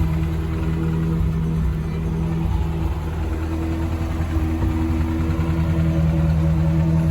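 Toyota Hilux YN106 pickup's engine running at a steady speed, dipping slightly in level midway before returning.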